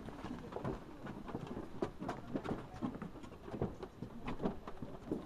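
Footsteps on a wooden boardwalk: an irregular run of hollow knocks from people walking on the boards.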